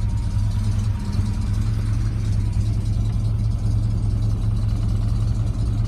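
Ford 460 big-block V8 of a 1978 Ford F600 idling steadily and evenly, running smooth after its front end was rebuilt with a new timing chain, water pump, plugs and plug wires.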